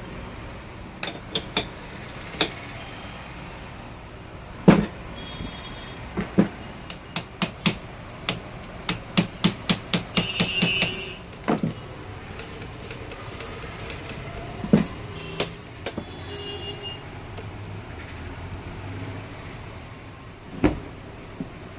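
Irregular sharp metal clicks and knocks of hands-on work on a sewing machine, with a quicker run of about a dozen knocks in the middle and a few brief ringing notes.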